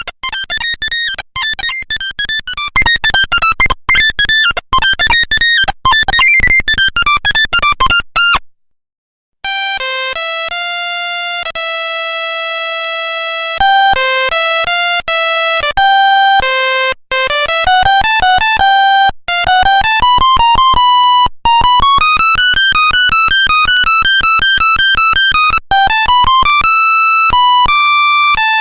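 Nokia 1100 monophonic ringtones, a single buzzy electronic note at a time. A fast, busy melody ends about eight seconds in. After a short silence a second, slower tune with longer held notes begins.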